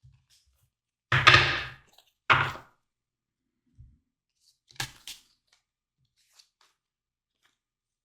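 A person coughing: two loud coughs a little over a second apart, then a lighter one a few seconds later.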